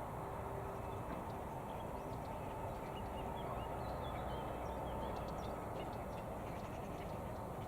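Strong wind blowing on the microphone, a steady low rushing noise, with faint high bird chirps scattered through the middle.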